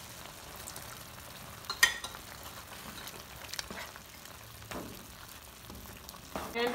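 Kidney bean gravy sizzling and bubbling in a pan while a wooden slotted spatula stirs and presses the beans, with a few sharp knocks of the spatula on the pan, the loudest about two seconds in.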